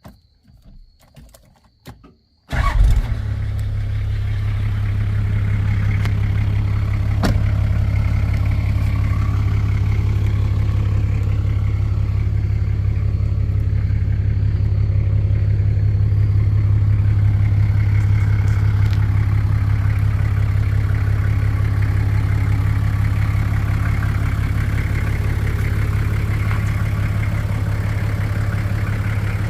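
1987 Toyota Land Cruiser HJ60's diesel engine being started while hot. A few small clicks come first, then about two and a half seconds in it catches at once and settles into a steady idle.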